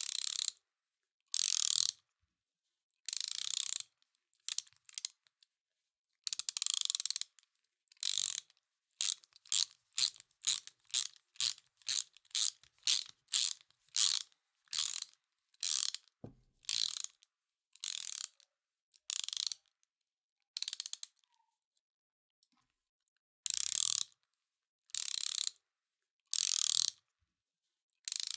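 Ratchet wrench clicking as its handle is swung back and forth in repeated strokes. The first strokes are long, then comes a quick run of short strokes at about two to three a second. After a pause of about two seconds near the end, long strokes resume.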